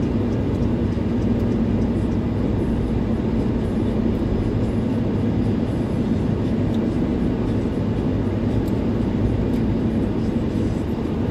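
Steady road and engine noise heard inside a car's cabin while driving at highway speed: a constant low rumble with a steady drone.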